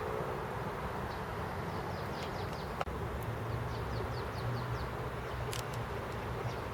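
Outdoor ambience with a steady low hum of distant traffic, over which a small bird gives a quick series of short, high, falling chirps from about a second in until about five seconds. A single sharp click, the loudest moment, comes about three seconds in.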